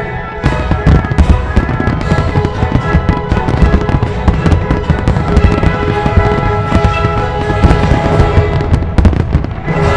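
Dense barrage of firework shells bursting, many sharp bangs in rapid succession from about half a second in, over the display's music with held notes.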